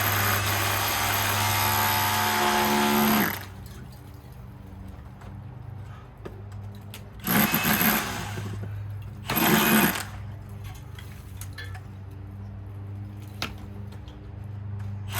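A power tool running under load, then stopping about three seconds in. Two short bursts of the tool follow about two seconds apart, over a steady low hum.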